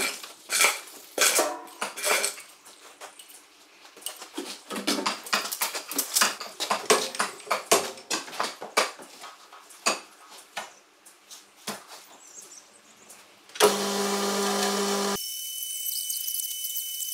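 Irregular metallic clanks and knocks of heavy steel pieces being handled and set down. Near the end a loud, steady machine sound starts abruptly.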